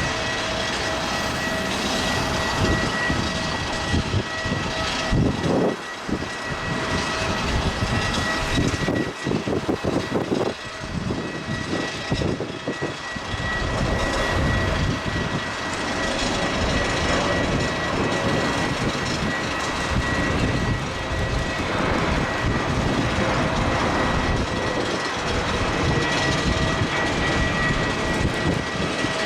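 Boeing 777-200's twin jet engines running steadily as the airliner comes in to land: a loud rush with a steady high whine over it.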